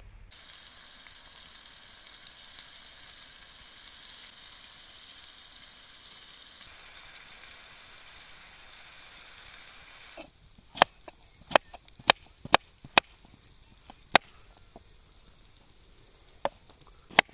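Vegetables frying in a pan over campfire embers, a steady sizzle. About ten seconds in it cuts to a knife chopping vegetables on a wooden cutting board: sharp knocks at irregular intervals.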